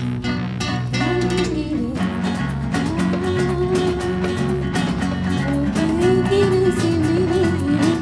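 Live music from an ensemble of acoustic guitars, strummed and plucked in chords, joined about three seconds in by a woman singing into a microphone.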